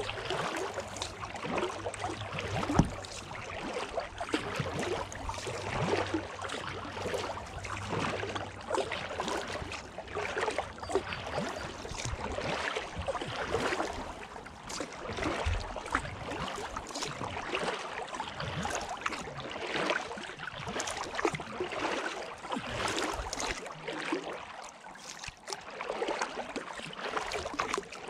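Kayak paddle strokes: the blades dip and splash in the water again and again with dripping in between, and water moves along the hull.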